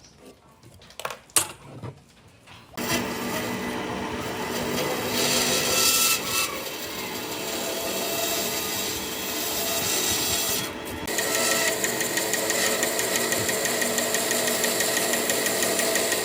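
A couple of knocks, then a power tool starts up about three seconds in and runs on wood, steady, with a brief dip near eleven seconds.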